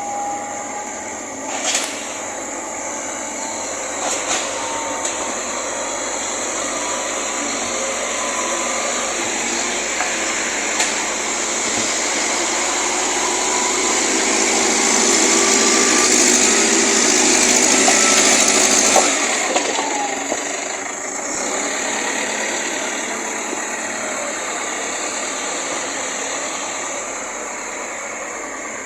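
JCB backhoe loader's diesel engine running while the machine works, with a steady mechanical noise that builds to its loudest partway through and eases back after about two-thirds of the way in.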